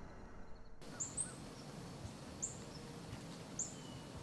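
A small bird calling a short, high, falling chirp three times about a second apart, starting about a second in, over a faint steady outdoor hiss.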